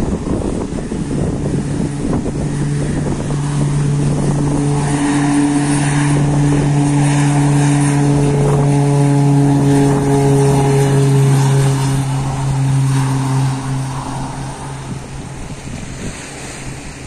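Twin Otter floatplane's two turboprop engines and propellers droning at high power as it skims across the water, a steady low hum with a stack of overtones. It swells as the plane passes, dips slightly in pitch, then fades toward the end.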